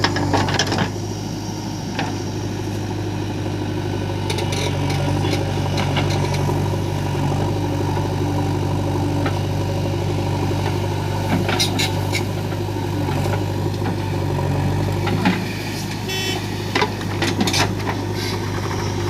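Heavy diesel engine running steadily, with scattered short knocks and clanks and a quick run of ticks near the end.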